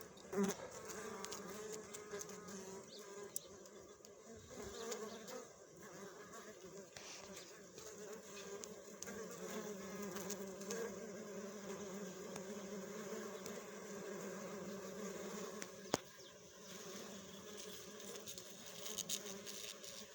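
Steady insect buzzing, a low drone, broken by a couple of sharp clicks.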